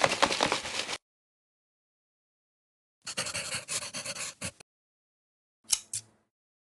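Edited-in sound effects for an animated title: a scratchy, pen-on-paper scribbling sound that stops about a second in, a second scribble of about a second and a half starting three seconds in, and two sharp pops near the end, with dead silence between them.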